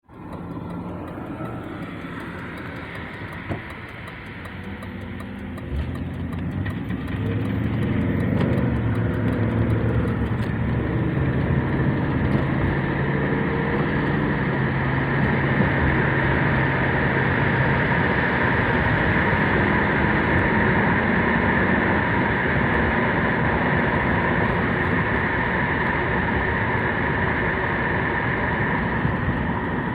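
2008 Ford Crown Victoria running with a light clicking noise of unknown origin that the owner is trying to track down. About six seconds in the engine sound grows louder and rises in pitch, then settles into a steady run.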